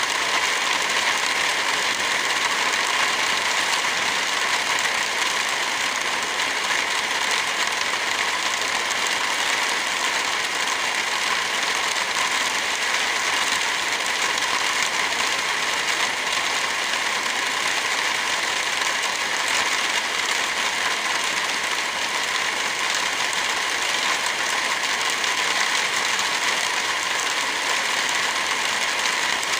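Steady rain falling, an even hiss that does not let up, with a wood fire crackling.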